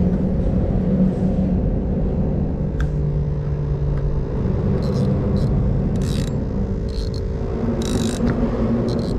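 Low, steady rumble of vehicle traffic crossing the bridge overhead, with engine hum drifting in pitch. Short sharp clicks come in from about halfway through.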